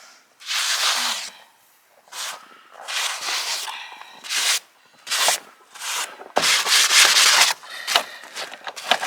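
Snow being scraped and brushed, in about eight irregular bursts of rough scraping, some brief and some about a second long.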